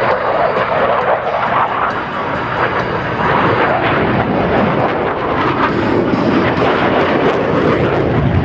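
Blue Angels F/A-18 Super Hornet jets flying over, a loud continuous jet roar that grows deeper and heavier in the second half.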